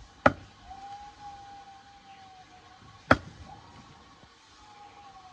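Two sharp chopping strikes, a blade hitting bamboo, about three seconds apart, each with a brief ring. A faint, wavering tone is heard between them.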